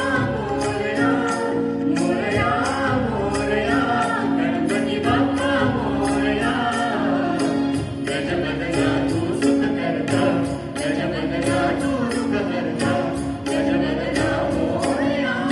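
A man and two women singing a Marathi song together into microphones, over a held drone note and a steady percussion beat.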